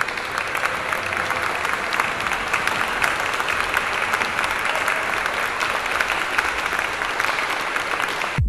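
Applause: many hands clapping, dense and steady throughout.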